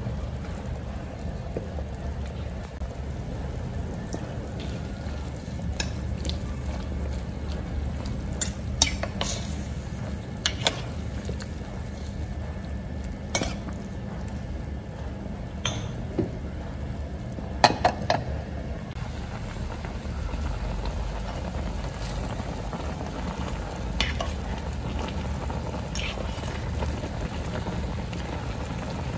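A metal spoon stirs vegetables in a clay pot of simmering broth, knocking and scraping against the pot now and then, with a cluster of louder knocks a little past the middle. A steady low rumble runs underneath, and the broth bubbles more strongly near the end.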